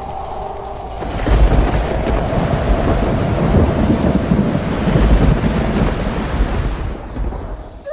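Thunderstorm sound: steady heavy rain with low rolls of thunder, swelling about a second and a half in and again around five seconds, easing off near the end.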